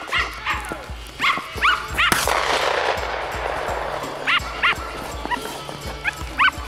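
Hunting dogs barking in short, irregular bursts. About two seconds in there is a single sharp bang, and its echo trails off over the next second or two.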